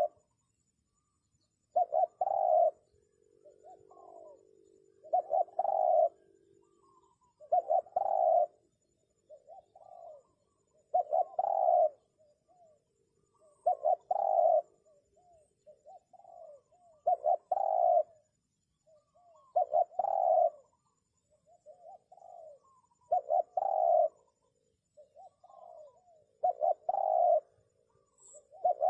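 Spotted dove cooing: a phrase about every three seconds, a softer lead-in note followed by a loud doubled coo.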